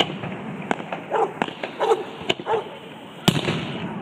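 Fireworks going off with sharp bangs at irregular intervals, the loudest about three seconds in. Between the bangs a dog barks several short times.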